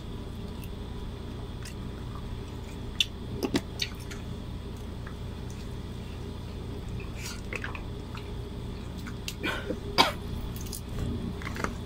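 Eating by hand: fingers mixing rice in a plastic tray and peeling shrimp, giving scattered small clicks and wet handling noises, the loudest about ten seconds in, over a steady low room hum.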